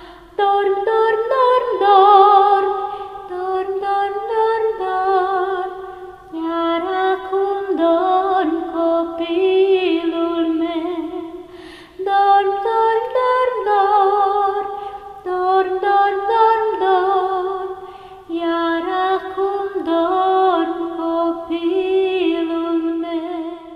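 A woman singing a lullaby unaccompanied, in long phrases with vibrato on the held notes and short breath pauses about every six seconds.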